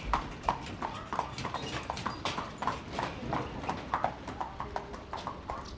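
Horse's hooves clip-clopping on an asphalt street as a horse-drawn carriage drives along, a quick irregular run of hoof strikes that grows slightly fainter as the carriage moves away.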